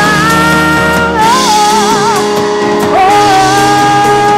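Live worship music: a singer holding long, wavering notes over sustained band chords with guitar and drums.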